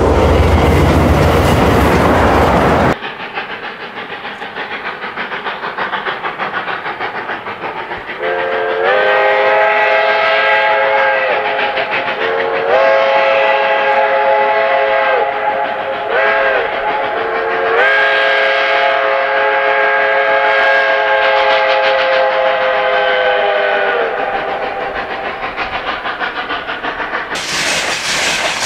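Cumbres & Toltec K-36 steam locomotive No. 484 chuffing as it works its train, then blowing its chime whistle in the grade-crossing pattern: long, long, a brief toot, long. A loud, even rushing noise cuts off about three seconds in and comes back near the end.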